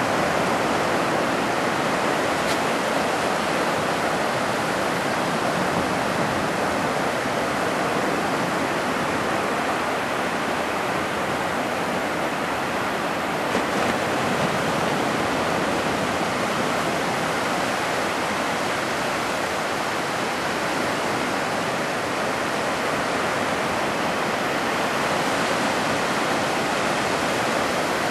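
Ocean surf breaking and washing up the shallows in a steady, even rush of white noise.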